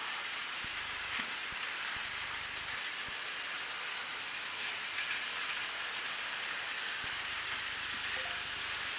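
Many Takara Tomy Plarail battery-powered toy trains running at once on plastic track: a steady, dense rattle of small motors and wheels, with a few faint clicks.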